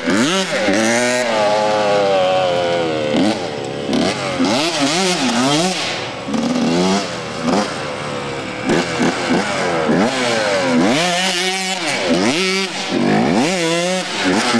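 Dirt bike engine revving up and down again and again, its pitch rising and falling many times as the rider spins the bike in circles on loose dirt.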